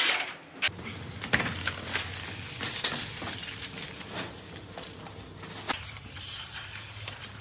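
Scattered light clicks and rustles of installers handling XPS foam insulation board and reflective foil film, with footsteps on the film, over a steady low hum that comes in under a second in.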